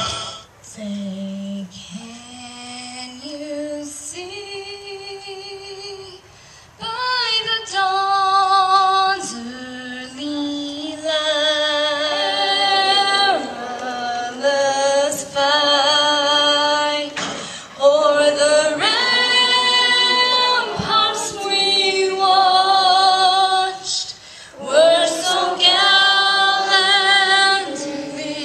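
A woman singing solo, with no instruments, in slow phrases of long held notes separated by short pauses; the singing is quieter for the first seven seconds or so, then louder.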